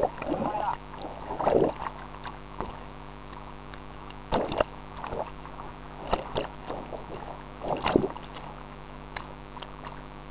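Jacuzzi water bubbling and churning over a steady low hum, with water washing loudly over the microphone a few times, at about a second and a half in, about four and a half seconds in and about eight seconds in.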